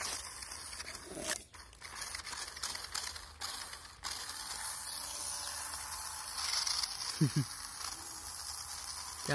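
A toy RC rock crawler's small electric motor and plastic gearbox whirring and ratcheting steadily, with its wheels churning in loose sand.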